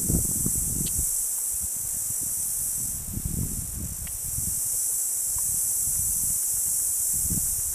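Steady high-pitched buzzing drone of insects in the trees, with irregular low rumbling bumps from handling on the microphone as the camera pans.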